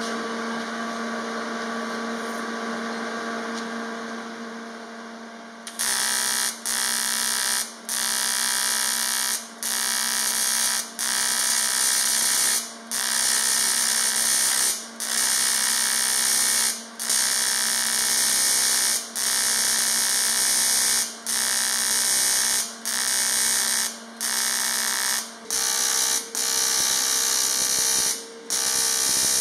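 Welding arc on a cast aluminium motorcycle frame, buzzing in runs of a second or two with short breaks, more than a dozen times over. For about the first six seconds there is only a steady electrical hum.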